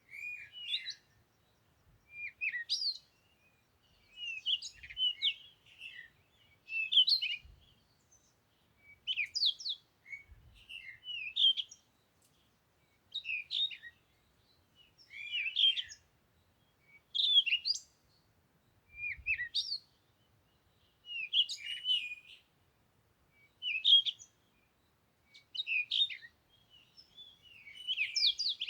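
A songbird singing short, quick phrases of rising and falling chirps, about one phrase every two seconds with brief pauses between them.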